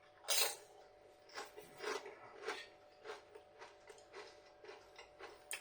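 Salted tortilla chips being bitten and chewed: one crunch just after the start, then a run of quieter crunching chews about twice a second.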